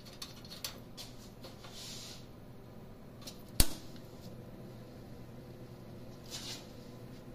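Handling noises while a machine is worked on: a few light clicks, then one sharp click about three and a half seconds in, over a low steady hum.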